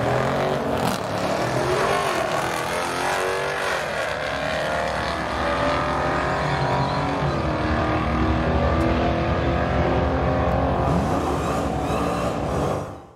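Modern Hemi V8 drag cars at full throttle, the engine pitch rising and falling several times over a dense rush of noise. The sound fades out at the very end.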